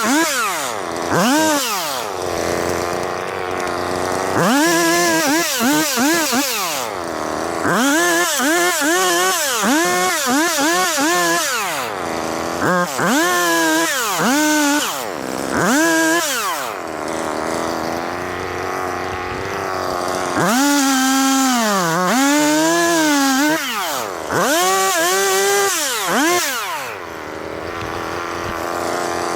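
Two-stroke chainsaw bucking fallen trees, revved up to full throttle and dropped back to idle again and again. At full throttle the pitch wavers as the chain bites into the wood.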